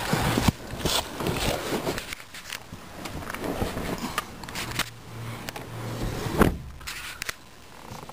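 Someone climbing into the back seat of a car through an open rear door: clicks, scrapes and rustling of clothing against seat fabric, with a single heavy thump about six and a half seconds in.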